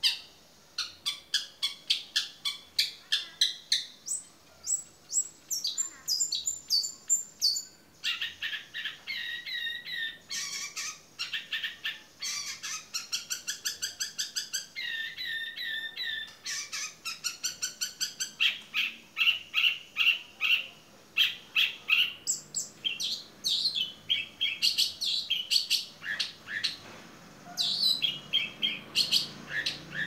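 Long-tailed shrike (cendet) in full song: fast runs of sharp, repeated chirps and trills, the phrase changing every second or two, with hardly a break.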